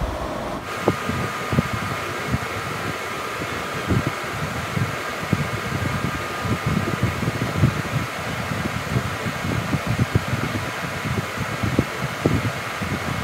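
Steady whir of a running fan with a faint high hum, joined by frequent soft, irregular low knocks.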